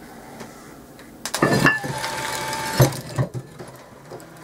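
Car windscreen-wiper motor turning a sprocket and bicycle chain. After a few clicks it runs for about a second and a half with a steady whine and chain clatter, ends in a sharp knock, and leaves a few chain clicks.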